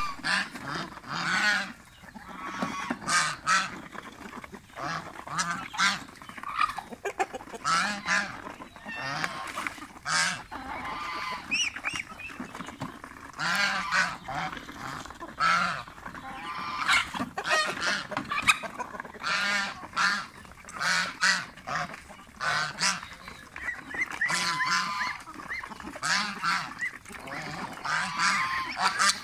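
Domestic goose honking again and again in loud, harsh calls, one after another: an agitated goose, unhappy with the ducks and chickens around it.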